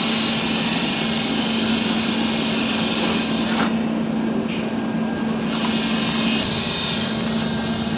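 A motor running steadily with a constant hum and a loud whooshing noise, the hiss thinning briefly about three and a half seconds in and again a second later.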